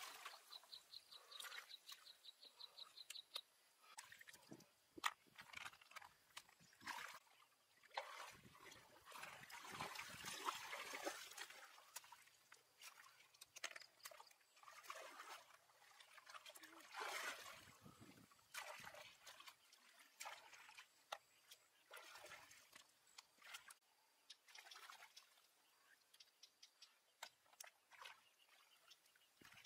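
Faint, irregular splashing and trickling of shallow water, swelling now and then into louder sloshes. A rapid high ticking runs for a few seconds near the start.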